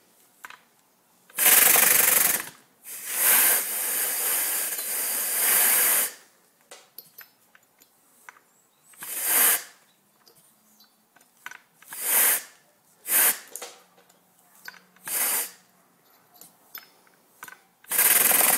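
34cc Poulan two-stroke chainsaw engine fed compressed air through an air valve in place of its spark plug: several short spurts of hissing air running, the longest about three to six seconds in, then near the end it keeps going and runs steadily on air.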